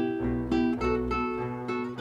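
Background music: a plucked guitar playing a melody, one note after another every few tenths of a second.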